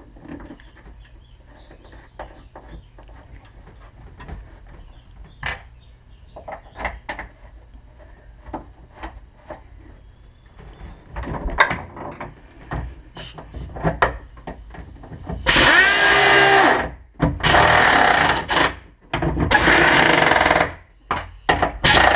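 Light clicks and knocks of parts and tools being handled, then a power drill run in three bursts of about a second and a half near the end, the first rising in pitch as it spins up, as bolts are run in on an engine mount.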